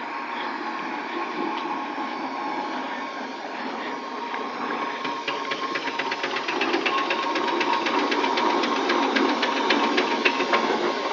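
Steam traction engine drawing near and coming alongside at road speed: a quick, even clatter of its exhaust beats and working motion that starts about halfway in and grows louder, over the hiss of a car passing.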